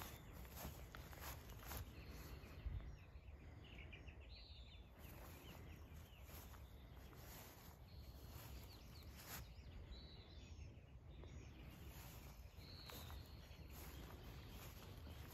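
Near silence: faint outdoor background hum with a few soft, short bird chirps scattered through it and occasional light clicks.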